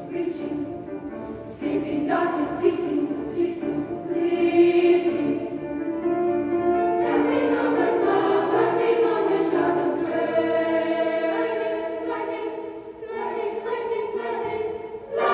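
Children's choir singing in parts, swelling into a fuller, louder passage about seven seconds in and easing off near the end.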